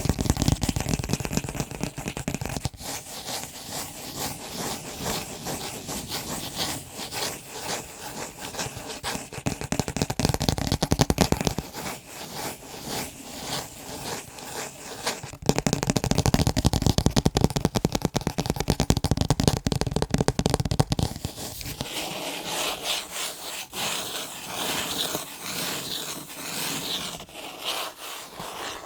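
Fast tapping and scratching on picture frames in dense, rapid strokes. The strokes are deeper and fuller at the start and again in the middle, and turn to a lighter, higher scratching over the last several seconds.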